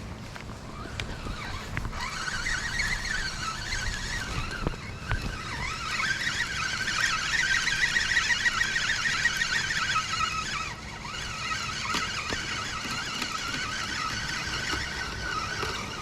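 A flock of birds calling, many squeaky, wavering calls overlapping; the chorus thickens to its loudest about halfway through and thins briefly a little after.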